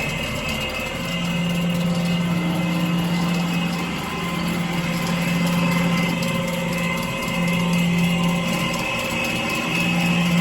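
Nilfisk Advance SC1500 REV floor scrubber running with an abnormal mechanical sound: a low hum that cuts in and out every few seconds over a steady whine and a fast ratcheting rattle.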